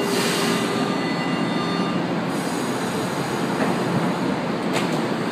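São Paulo Metro train at the platform as its doors close: a steady multi-pitched tone, which fits the door-closing warning, sounds for about two seconds at the start over continuous train and station noise. A sharp knock comes near the end.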